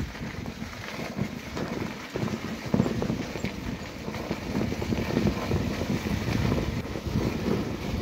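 Wind buffeting the microphone: an uneven, gusting rumble that swells a little from about three seconds in.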